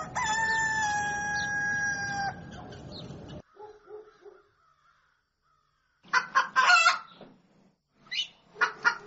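Rooster crowing: one long, held crow lasting about two seconds, followed by a few soft clucks. From about six seconds in come two loud runs of rapid, choppy fowl calls.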